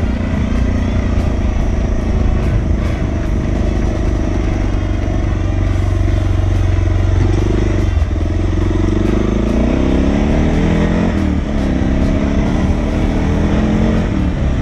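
Suzuki DR650's single-cylinder four-stroke engine running under way on a dirt road. It holds a steady note, then from about eight seconds in its pitch rises and falls several times as the throttle is worked.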